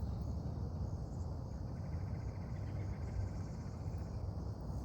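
Steady outdoor ambience: a high, continuous insect chorus over a low rumbling haze, with a faint rapid ticking in the middle.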